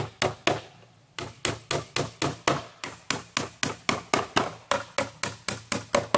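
Claw hammer driving nails into a new wooden board on a wooden lawn chair: a fast run of sharp, even strikes, about four to five a second, with a brief pause about a second in.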